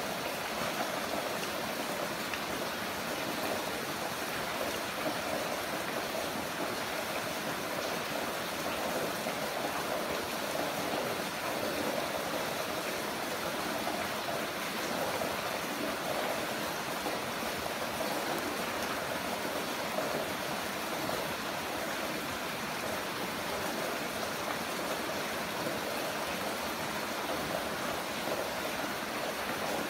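Heavy rain falling steadily, an even rushing hiss with no breaks or distinct drops.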